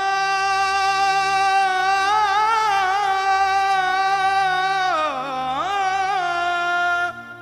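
Indian-style music: a single voice holds one long note with slight wavering over a low steady drone. About five seconds in it dips in pitch and comes back up, then stops shortly before the end.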